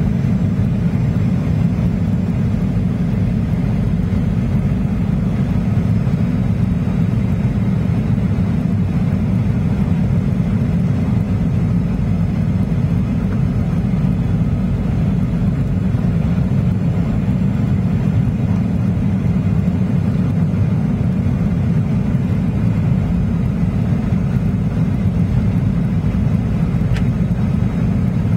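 Steady low rumble inside the passenger cabin of a Boeing 737-800 in flight: noise of its CFM56-7B engines and the airflow around the fuselage during the descent to land.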